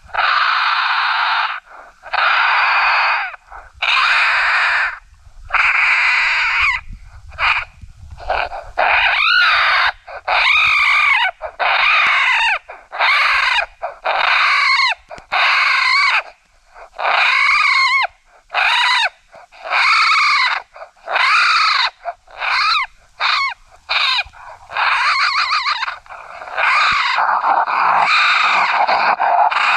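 Raccoon brawl call: the squalls and screams of grown raccoons fighting, in calls of about a second each with short gaps, raspy at first, then wavering up and down in pitch, coming faster and running together into one continuous squall near the end. A raccoon-hunting call sound meant to bring raccoons in.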